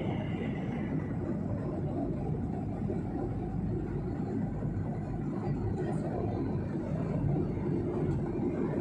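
Steady cabin drone of a jet airliner in cruise, heard from a window seat beside the wing: engine and airflow noise, a deep even rumble with little high-pitched content.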